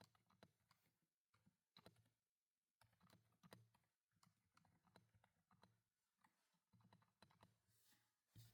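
Faint, irregular clicking of computer keyboard keys being pressed, several to a second with short gaps.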